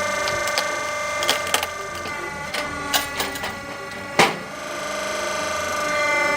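A wood-processing machine running with a steady whine, with scattered sharp knocks and cracks of wood, the loudest about four seconds in.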